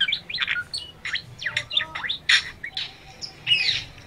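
Many birds chirping and calling at once, a busy overlap of short chirps and quick whistled glides.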